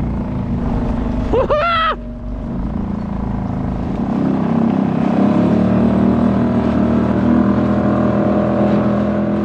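Small Suzuki gas outboard motor running steadily at speed, pushing a kayak through the water with a hiss of water alongside; its note settles and grows a little steadier about halfway through.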